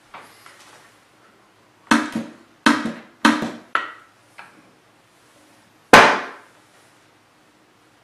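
Knocking on a wooden escape-room prop box: four sharp knocks in quick succession, a faint one after, then one louder knock about two seconds later. It is a knock pattern tapped out for the knock sensor fixed inside the box lid.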